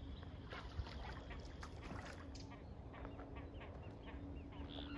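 A fishing reel being wound in on a carp rod, faint: light irregular clicks with a low hum that comes and goes.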